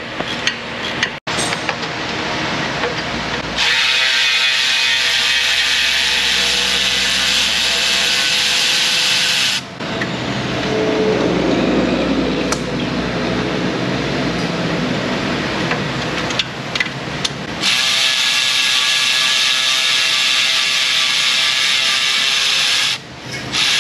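Milwaukee cordless electric ratchet spinning loosened exhaust manifold bolts out. It runs in long stretches from about three seconds in, with brief stops about ten and seventeen seconds in.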